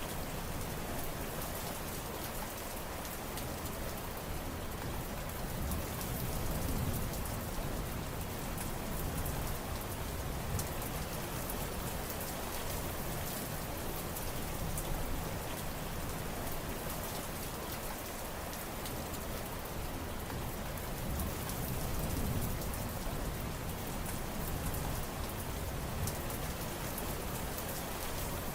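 Steady heavy rain: a dense, even hiss of rainfall with many fine drop ticks on top, swelling gently in the low end now and then.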